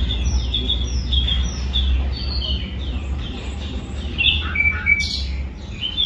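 Caged songbirds chirping: a quick run of short, high, repeated chirps, about three a second, with a louder call near the end and one sharp click about five seconds in.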